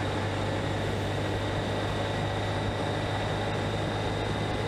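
Honda CB125F's single-cylinder four-stroke engine running at a steady cruise, its drone holding one pitch, under a heavy rush of wind noise on the microphone.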